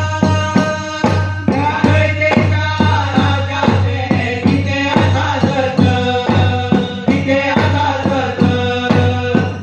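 Male singers and chorus chanting a Goan Jagor folk song. A barrel drum and ghumat clay-pot drums keep a steady beat of about two strokes a second, with small kansallem cymbals ticking along.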